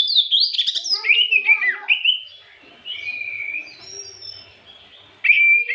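Oriental magpie-robin (kacer) singing: a fast run of varied whistled glides and chirps, loud for the first two seconds, softer held notes in the middle, then a loud burst of song again near the end.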